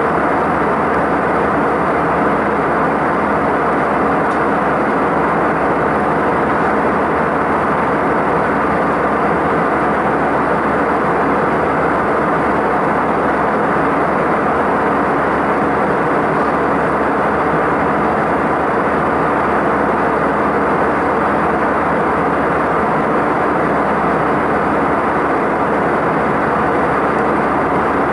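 Steady cabin noise of a jet airliner in cruise, heard from a window seat over the wing: an even, unchanging rush of engine and airflow noise.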